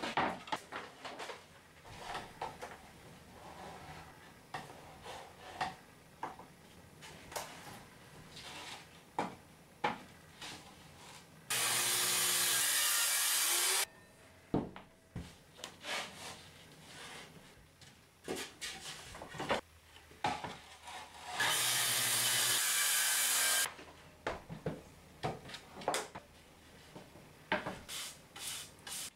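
Hand-held electric circular saw cutting through wooden boards twice, each cut lasting about two seconds. Between the cuts, boards being handled knock and scrape.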